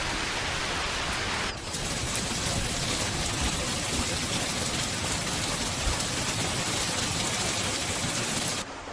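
Steady rain falling, an even hiss of drops. About a second and a half in, it cuts abruptly to a slightly different rain recording, and just before the end it drops to a quieter, duller rain.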